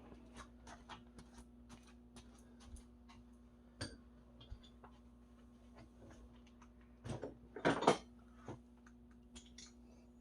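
Scattered light clicks and taps of hand tools and small parts being handled during a dirt-bike oil change, with a louder clatter about three-quarters of the way through, over a steady low hum.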